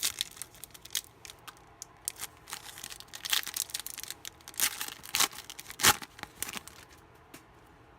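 A trading-card pack wrapper being torn open and crinkled, a rapid run of crackles and rips that stops near the end.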